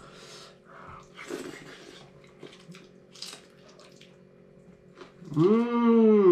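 Quiet eating sounds of food being chewed and mixed by hand. About five seconds in comes a loud, drawn-out wordless vocal sound whose pitch rises and then falls, lasting about a second and a half.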